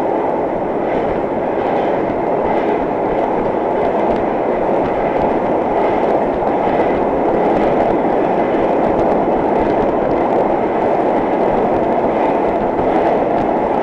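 Vintage IRT Low-V subway car running at speed, heard from inside the car: a steady, loud running noise of wheels on rails, with faint clicks of the wheels over rail joints.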